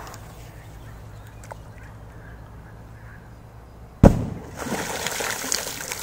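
A large firecracker explodes in bog water about four seconds in with one sharp bang. The thrown-up water then patters and splashes back onto the surface for about two seconds.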